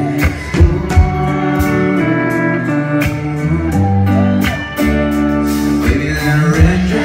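Live band playing an instrumental passage: guitar melody over bass and regular drum hits.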